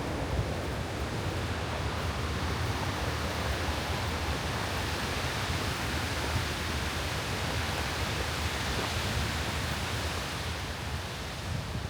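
Steady rushing noise of strong blizzard wind, with a low rumble of wind buffeting the microphone.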